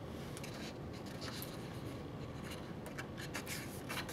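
Pages of a hardcover picture book being turned and handled, faint paper rustling and sliding with a few small crinkles and taps.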